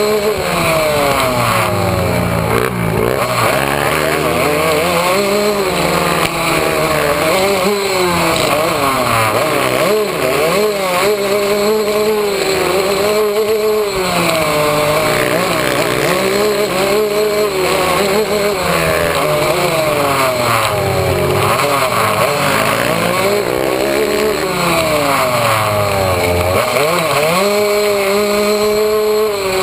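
Yamaha YZ125 two-stroke single-cylinder dirt bike engine riding hard, its revs climbing and dropping again and again as it shifts and works the throttle.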